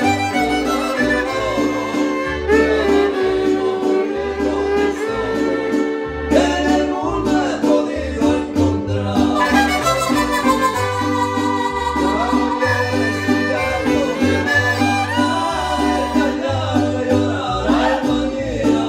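Mariachi ensemble playing: violins bowing the melody over deep, evenly alternating bass notes and strummed guitar rhythm.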